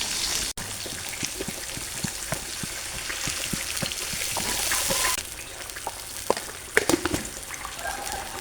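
Food sizzling as it fries in a pan, with scattered small clicks. The sizzle drops away about five seconds in, leaving quieter clatter.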